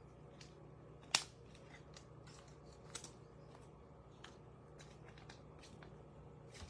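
Trading cards being handled and sorted: scattered light clicks and slides of card stock, with one sharper click about a second in, over a faint steady hum.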